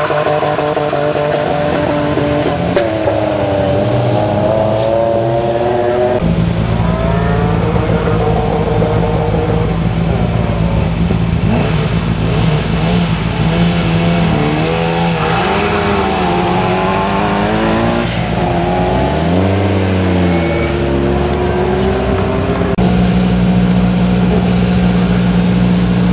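Rally car engines: one car accelerating away from the start through the gears in the first few seconds, then another car idling close by at the start line, blipping its throttle in rising and falling revs a couple of times, its idle getting louder near the end.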